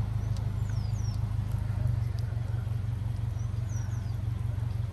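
Car engine idling as a steady low hum, heard from inside the car. A few faint high chirps slide downward, twice near the start and twice near the end.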